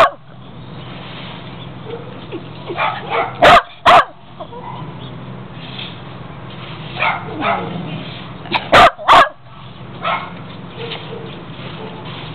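Small white terrier barking close up: two very loud barks a fraction of a second apart about three and a half seconds in, and another pair about nine seconds in, with shorter, quieter calls in between.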